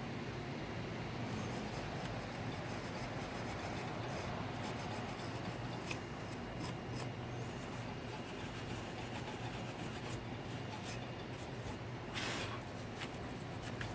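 Steel wool or a wire brush scrubbing the metal Keihin throttle body by hand, a steady scratchy rubbing with many small rasping strokes, as corrosion and grime are worked off. A short hiss comes about twelve seconds in.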